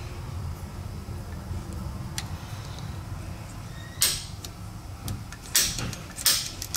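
Metal GPS mount and plate being handled on a bench vise: a few sharp clicks and scrapes, the loudest about four seconds in and then in a quick cluster near the end, over a low steady hum.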